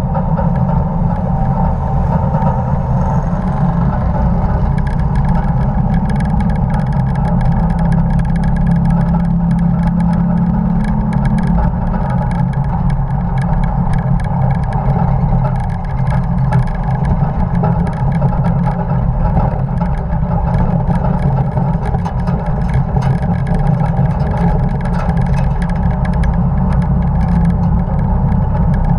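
Engine of a 1950 Dodge pickup race truck running steadily at track speed, heard with rushing wind and a fast, light rattling throughout.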